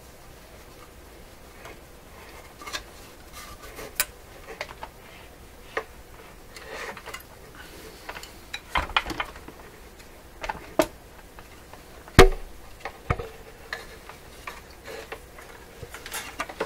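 Irregular clicks and light knocks from handling a tube radio chassis and tools, with one louder knock about twelve seconds in.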